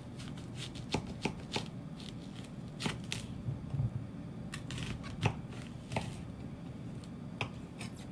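Kitchen knife cutting a peeled onion on an end-grain wooden cutting board: crisp crunches through the onion layers and irregular knocks of the blade on the wood, about a dozen in all.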